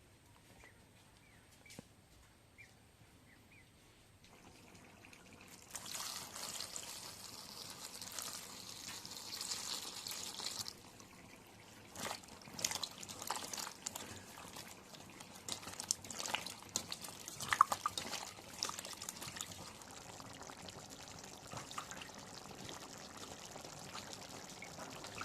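Liquid pouring and splashing in a cooking pot: a steady hiss for about five seconds, starting about five seconds in, then scattered knocks and clinks.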